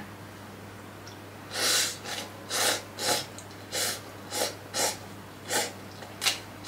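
A person slurping instant noodles off a fork: a string of about nine short, airy slurps, roughly half a second apart.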